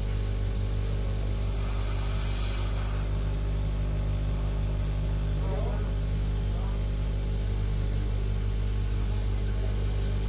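Hot-air rework station running steadily while a phone board's IC is being heated off, a constant electrical hum with a hiss of air.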